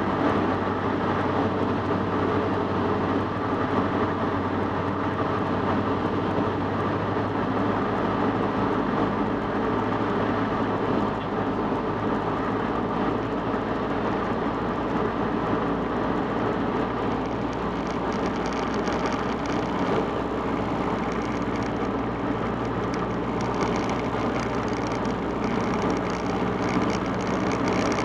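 Cessna 150's Continental O-200 four-cylinder engine and propeller droning steadily, mixed with rushing airflow noise, as the light aircraft descends on approach to land.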